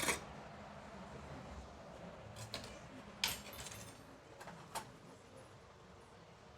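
A few scattered light metallic clicks and clinks of small hardware and tools being handled, the clearest about halfway through.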